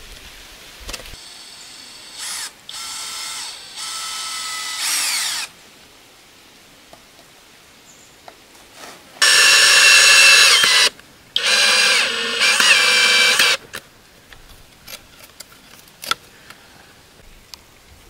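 Cordless drill whining in bursts while fixing a pipe clip to a stone wall: a few shorter, quieter runs, then two loud runs of about two seconds each a little past the middle.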